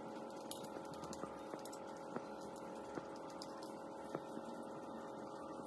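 A faint, steady hum with several held tones. Over it come scattered faint clicks of a knife touching the steel pan as it cuts through set custard jelly.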